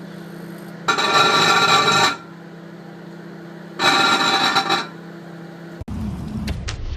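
Microwave oven running with a steady hum, broken twice by about a second of loud buzzing as grapes inside it spark into plasma. Near the end it gives way suddenly to a different low rumble with a few sharp clicks.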